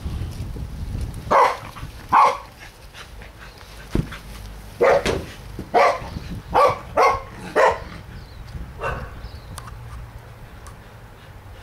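Pembroke Welsh corgi barking in short, sharp barks: two barks in the first few seconds, then a quick run of five in the middle and one weaker bark near the end. A single sharp thump sounds about four seconds in.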